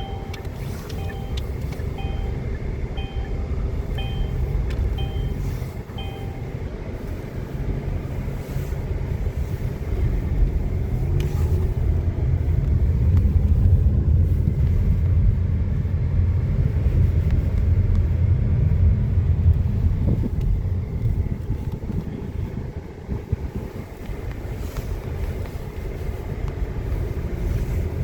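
Strong gusty wind buffeting the microphone as a heavy, surging low rumble. A repeating electronic beep, about two a second, sounds over it and stops about six seconds in.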